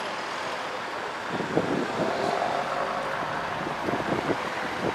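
Street traffic noise, a steady hum of passing cars, with wind on the microphone. From about a second in, short knocks come through it.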